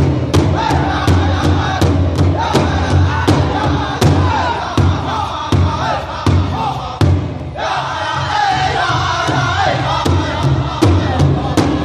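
A powwow drum group singing around a big drum: several voices chanting together in a high, wavering chorus over a steady unison drumbeat of about three strokes a second. The singing breaks off briefly about seven seconds in, then the voices come back in strongly.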